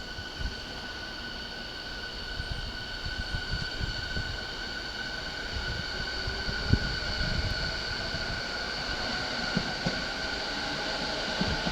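Electric commuter train moving through the station, a steady high-pitched whine over a low rumble that grows slowly louder.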